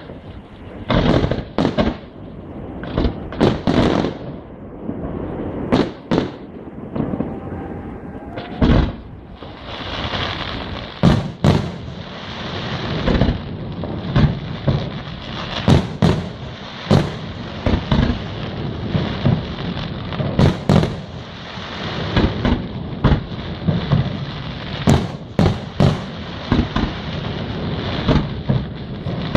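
Fireworks display: aerial shells bursting in many sharp bangs at irregular intervals, over a steady rushing hiss that thickens from about ten seconds in.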